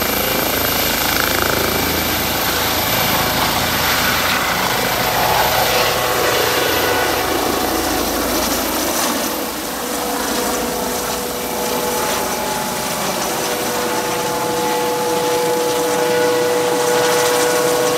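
Airbus EC135 helicopter lifting off and climbing away, its rotor and turbine running loudly. A heavy low rumble thins out about halfway through, leaving a steady whine.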